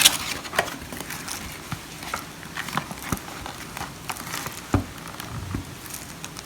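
Cardboard packaging being handled and opened by hand: scattered light taps, clicks and rustles, with one heavier knock a little under five seconds in.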